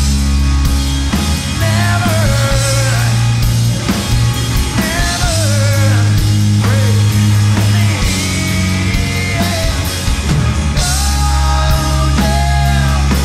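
Live rock band playing a song loudly: a heavy, sustained bass line and drum kit under a melody line that bends up and down.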